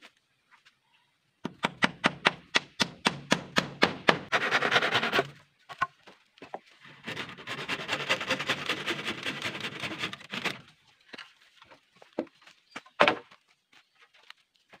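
Hand saw cutting through a green bamboo pole: a quick run of rasping strokes, then a longer stretch of steady sawing. A single sharp knock comes near the end.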